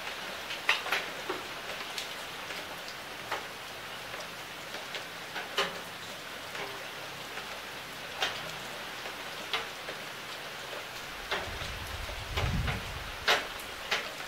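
Steady rain falling on a leafy fruit tree: an even hiss with scattered sharp taps of heavy drops striking leaves and fruit. A low rumble rises and fades near the end.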